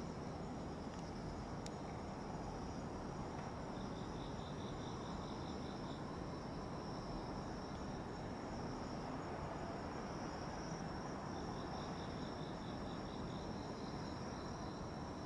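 Night insects calling, crickets among them: a steady high trill, joined twice by another insect's pulsed chirping at about four or five pulses a second. Under them is a low steady rumble of background noise.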